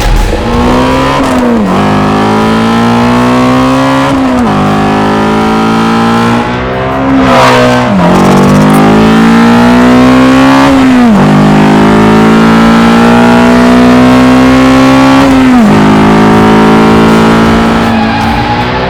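Ford Mustang Shelby GT350's 5.2-litre flat-plane-crank V8 accelerating hard through the gears: the exhaust note climbs steadily in pitch, then drops sharply at each upshift, about five times, with each gear pull lasting longer than the one before.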